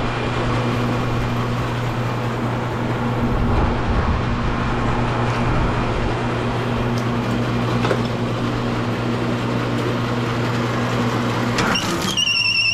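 Electric automatic copper wire stripper running steadily with a constant motor hum while heavy insulated wire feeds through its blades. Near the end a high, wavering tone sets in.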